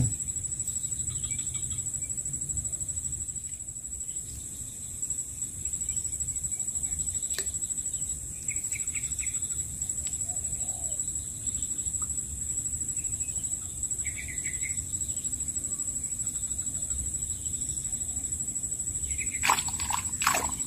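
Outdoor ambience: a steady high-pitched whine over a low rumble, with a few short bird chirps about nine and fourteen seconds in. A few sharp rustles or knocks near the end.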